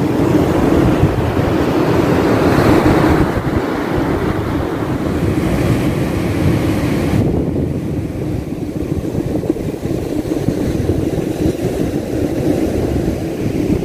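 Wind buffeting the microphone over the rush of surf breaking on the beach. The higher hiss drops away suddenly about halfway through, leaving the lower rumble.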